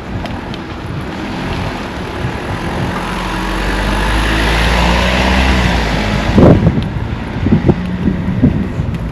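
A motor vehicle drives past, its engine and tyre noise growing louder over several seconds, peaking, then quickly fading. A few low thumps on the microphone follow.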